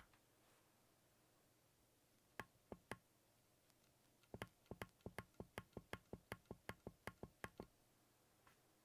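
Keystrokes on a Keychron Q0 Plus mechanical numpad with Gateron G Pro brown switches: three separate presses, then a quick even run of about twenty at roughly six a second, all faint.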